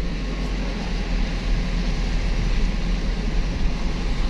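Steady low rumble of a vehicle driving over a rough, muddy unpaved road.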